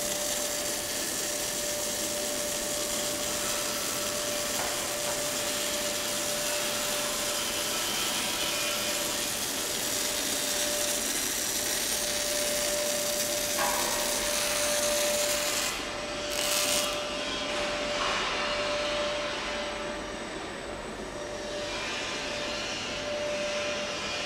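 MAG (gas metal arc) welding arc crackling and hissing steadily on a steel tube-to-flange joint. The arc stops about two-thirds of the way through, with one brief short burst just after, leaving quieter workshop noise. A steady thin whine runs underneath throughout.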